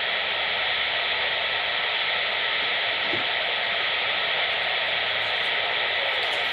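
CB radio receiver static: a steady, even hiss with no voice coming through once the transmission has ended.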